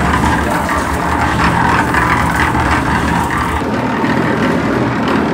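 Motor-driven rotating steel drum mixer running with a steady mechanical hum as the food tumbles inside the drum.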